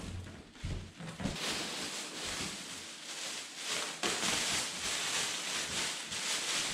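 Plastic wrapping rustling and crinkling as a plastic-bagged dog bed pad is pulled out of a cardboard box, with a few soft knocks in the first second or so.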